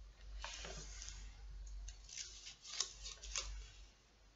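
Pages of a book rustling as they are leafed through: several short rustles with a few sharp clicks.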